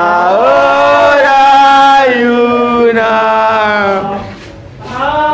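Brass horn playing a slow melody of long held notes, with a short break about four seconds in before the next note.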